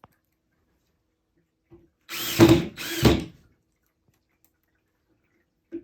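Power drill driving screws through a dresser leg's metal mounting plate into the wood, in two short bursts about two and three seconds in, each spinning up, with a few small clicks of handling around them.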